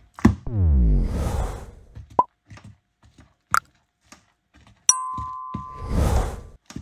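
Electric kitchen mixer mixing flour into cottage-cheese dough: its motor winds down with a falling whine, a few clicks and knocks follow, and about five seconds in it starts running again with a steady whine and a brief rush.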